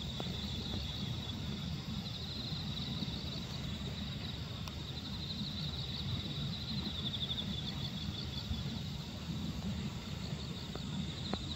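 Crickets chirping in repeated pulsed trills, over a steady low rumble.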